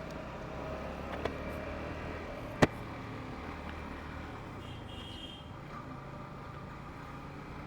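Motorcycle engine running at low speed with general street noise, and one sharp click about two and a half seconds in.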